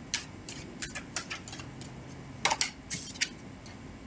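A deck of tarot cards being shuffled in the hands: irregular soft clicks and slaps of cards against each other, a few per second with a short gap in the middle.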